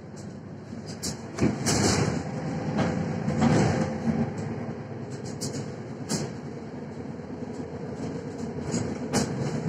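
Inside a Mercedes-Benz Citaro C1 Facelift city bus on the move: a low rumble of engine and road noise with scattered rattles and knocks from the body and fittings. It grows louder about a second in and eases off after about four seconds.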